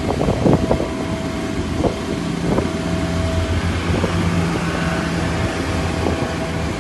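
Steady low engine rumble with a thin steady whine above it and a hiss of wind noise, with a few sharp knocks in the first second.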